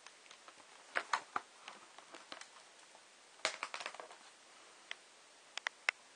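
Handling noise from unpacking a small solar battery charger: its clips, cables and plastic packaging being moved about, giving short clusters of clicks and taps about a second in, around the middle, and near the end.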